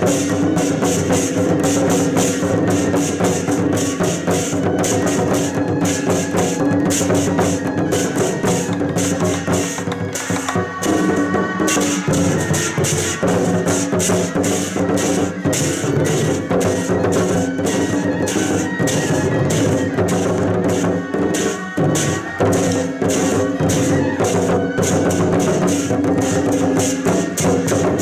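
A troupe of large Chinese barrel drums, tack-headed drums beaten with wooden sticks, played together in a fast, driving rhythm, with brief breaks in the pattern about a third and three-quarters of the way through.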